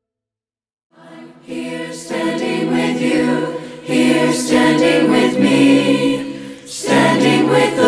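After about a second of silence, a choir comes in singing a cappella, its chords swelling in loudness several times.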